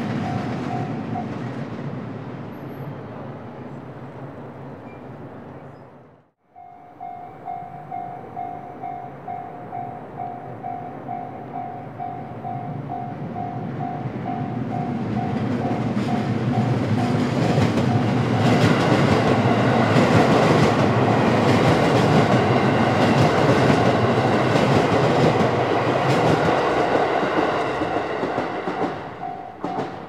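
A Japanese level-crossing bell dings at a steady pace while a JR 281-series Haruka limited express electric train runs over the crossing. The train's rumble and clatter build to loud in the second half and fade near the end. Early on, the sound cuts out briefly and the bell starts again.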